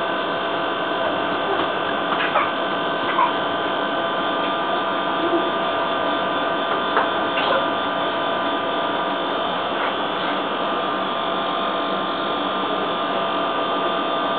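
A steady hum with several fixed tones running unbroken, with a few brief faint high blips scattered through it.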